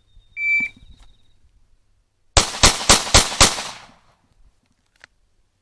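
A short high timer start beep, then about two seconds later five pistol shots in quick succession, about four a second, as the shooter draws and fires five rounds.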